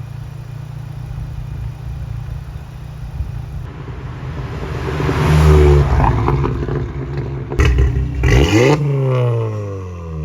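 Volkswagen Mk7 GTI's exhaust with a catless downpipe and 3-inch system: a steady low idle, then the engine is revved, climbing about five seconds in and again sharply near eight seconds, with the revs falling away near the end.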